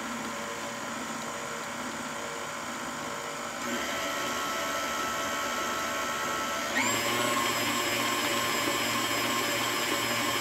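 Electric stand mixer running at low speed, beating a thick cream cheese mixture. Its motor steps up in speed twice, about a third of the way in and again about two-thirds in, each time getting louder with a higher whine.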